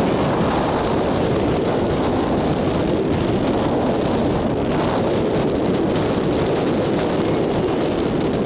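Steady wind noise rushing over the microphone, a constant roar with no breaks.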